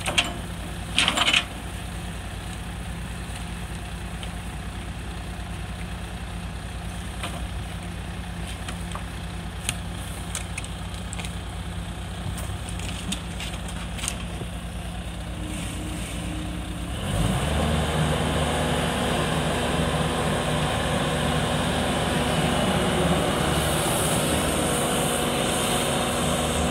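Bobcat S550 skid-steer loader's diesel engine idling steadily, with scattered scrapes and clicks of a rake pushing debris into its bucket. About two-thirds of the way through the engine is throttled up and runs louder and higher as the loader moves off and raises its arms.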